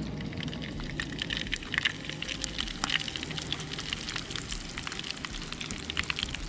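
Seasoned whole trout frying, a dense crackling sizzle with many small pops.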